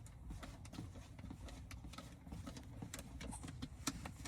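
Faint, irregular clicks and light taps of small metal nuts being taken off a UV air-purifier light unit.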